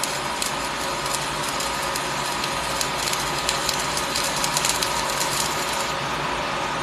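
Electric welding arc crackling and sputtering steadily as a bead is run, the crackle dying away near the end when the arc is broken, over a steady machine hum.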